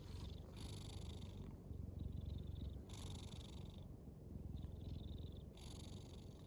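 Cat snoring in its sleep: a low rumble runs under slow, even breaths, with a hissy, whistling breath sound about every two and a half seconds, three louder breaths in all.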